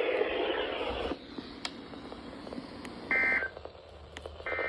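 Emergency Alert System SAME end-of-message data bursts from a NOAA Weather Radio receiver's speaker: two short, shrill warbling digital squawks about a second and a half apart, after a brief burst of hiss at the start.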